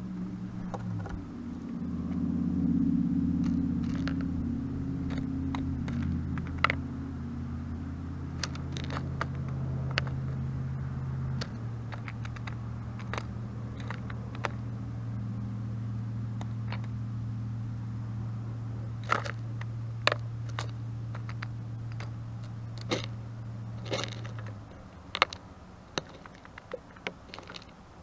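Blue jay pecking and handling peanuts and seed on a wooden feeder board: sharp separate taps and cracks, scattered and coming in small clusters. Under them a low steady engine drone that shifts pitch a couple of times and stops near the end.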